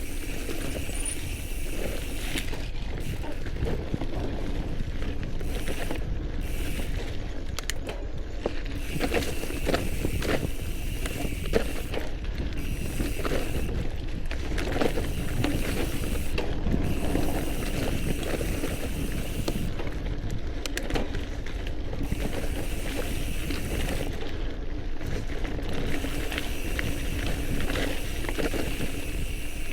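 All-City Gorilla Monsoon gravel bike ridden over dirt singletrack: tyres rolling on dirt with steady rumble and frequent small rattles and knocks from the bike going over rough ground, with wind noise on the microphone.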